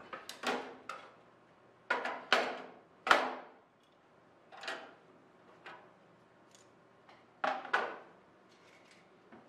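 Metal hand tools clicking and clacking against an aluminium wing structure as a hand rivet squeezer is handled during riveting: short, sharp clacks in irregular clusters, the loudest a single knock about three seconds in.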